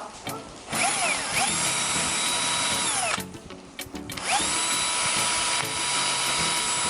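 Electric drill running in two goes: it spins up with a rising whine about a second in, runs steadily, winds down a little after three seconds, then spins up again about four seconds in and runs on. It is drilling a hole through a plastic bottle-cap connector.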